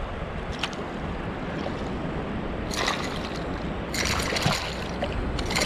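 Surf water washing and sloshing around a wading angler, with a few short splashes, three or four of them in the second half.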